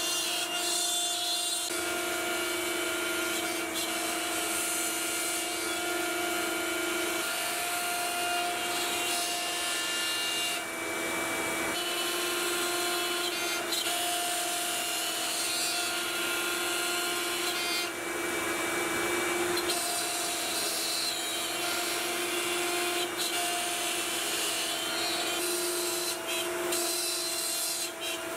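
Makita trim router on a Onefinity Woodworker CNC machine spinning at speed and milling wood, a steady high whine over cutting noise. The whine fades and returns several times as the bit moves through the cut.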